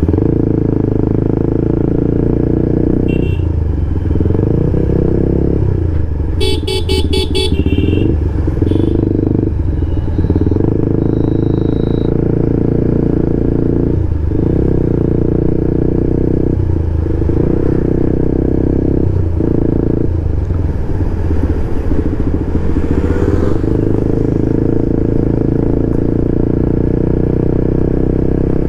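Motorcycle engine running under way at low road speed, its note dipping briefly several times as the throttle eases. A horn sounds in a quick series of short beeps about six to seven seconds in, with a shorter toot a few seconds earlier.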